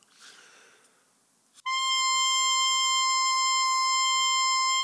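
Clarinet mouthpiece and reed blown on their own, without the instrument: after a faint breathy noise, a single high, steady tone starts about one and a half seconds in and is held for about three seconds, then stops. Playing the mouthpiece alone is a check of the player's voicing, and the target pitch is about a concert C.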